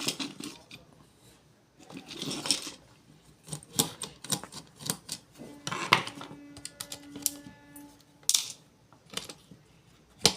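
Small tools and the plastic and metal parts of a hair trimmer clicking and tapping as it is taken apart: irregular sharp clicks with a short rustle about two seconds in. A faint steady ringing tone sounds for about a second and a half past the middle.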